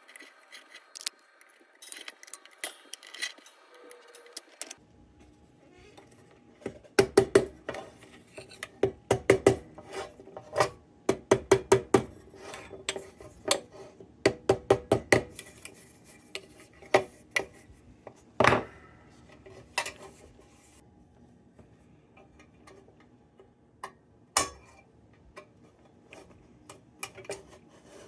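Metal lantern parts clinking and clicking as they are handled and fitted together during reassembly, in quick runs of small knocks through the middle, then a few single louder clanks.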